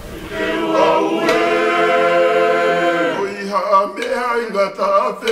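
Choir singing unaccompanied, first holding one long chord, then moving through shorter notes from about three seconds in.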